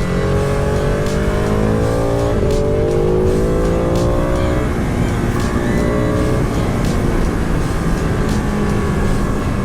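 Ducati 959 Panigale's V-twin engine pulling hard in a low gear, its pitch rising, with an upshift about two and a half seconds in, then climbing again before the rider rolls off about halfway through. Wind noise rushes steadily throughout.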